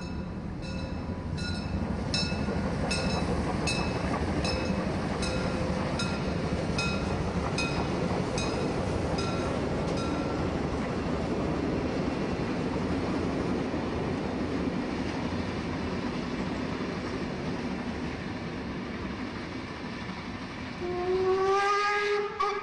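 Diesel-hauled train with a rail crane on its wagons rolling past on the tracks: a steady rumble of wheels and engine. A short repeating tone sounds about three times every two seconds over the first ten seconds, and a rising pitched tone comes in near the end.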